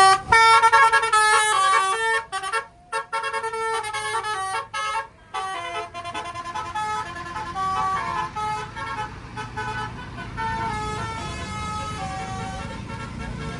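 A tour bus's musical telolet horn playing a quick melody of stepped notes. The melody is loudest in the first two seconds, breaks off briefly twice, then carries on more quietly.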